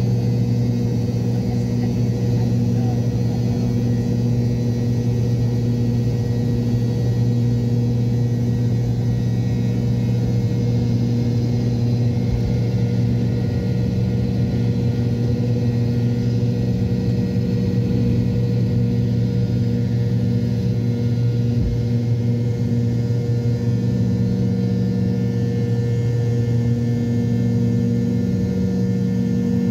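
McDonnell Douglas MD-83's rear-mounted Pratt & Whitney JT8D-219 turbofan at takeoff power, heard from inside the cabin right beside the engine: a loud, steady drone with a strong low hum through the takeoff roll and liftoff.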